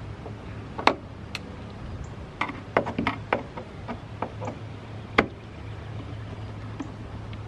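Wood screws being turned by hand with a screwdriver into a wooden nest box lid: irregular clicks and short creaks as the screw and blade work in the wood.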